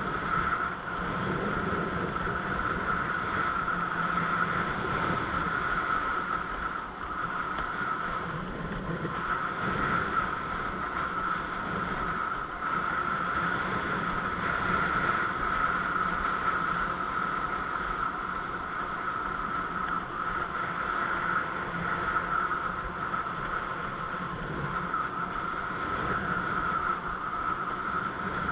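Windsurf board sailing across the water: a steady rush of water and wind on the microphone, with a constant high hum over it.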